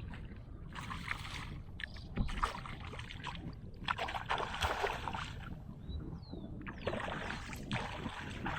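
Kayak paddle strokes swishing through the water, in several separate surges a second or two apart.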